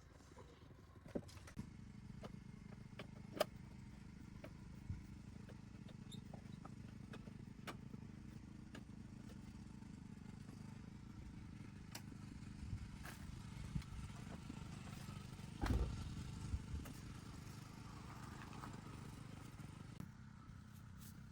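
A machine running steadily with a low hum, with scattered clicks and knocks over it; the loudest knock comes about three-quarters of the way through.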